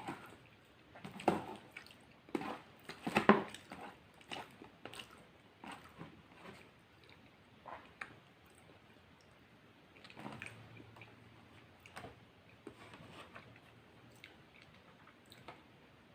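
Mouth eating sounds: chewing and biting with wet, squishy smacks of spaghetti, in irregular bursts that are busiest in the first few seconds and then thin out.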